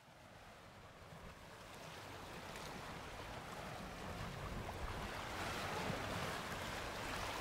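Faint ocean surf washing on a rocky shore, with some wind. It fades in after about a second of silence and grows slowly louder.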